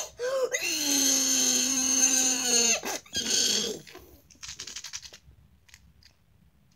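A long drawn-out vocal cry, held at a steady pitch for about two seconds and dipping slightly at the end. It is followed by a short rough burst and then faint quick clicking.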